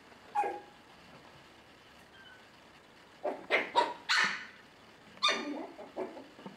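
Five-week-old Bolonka Zwetna puppies giving high little yips and barks while play-wrestling. There is a single yip about half a second in, a quick run of about four barks around three to four seconds in, and another bark with a few smaller yips near the end.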